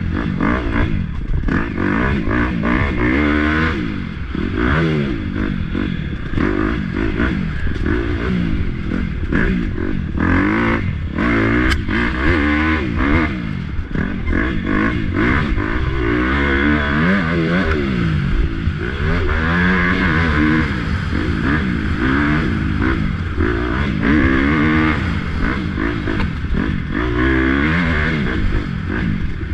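Racing motorcycle engine at full race pace, its pitch climbing and dropping over and over as it is revved out through the gears and shut off into corners.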